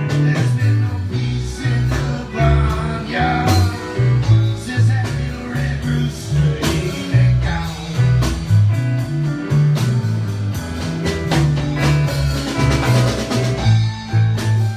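Blues band playing, with guitar and drum kit over a repeating low bass line.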